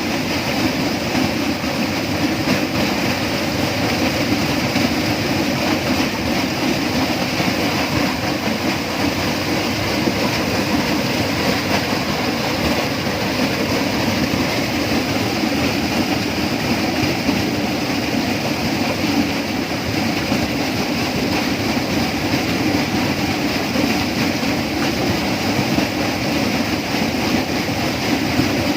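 Steady tropical rainforest ambience: a continuous, dense wash of sound with no breaks or single events.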